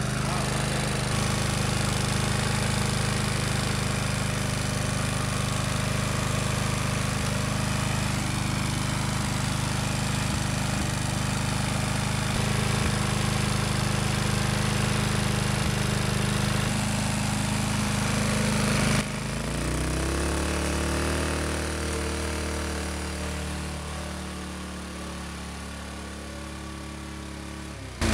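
John Deere lawn mower engine running flat out with its throttle stuck open. About two-thirds through, its pitch drops suddenly and it runs on slower and gradually quieter as water is drawn into the intake and bogs it down, without hydrolocking it.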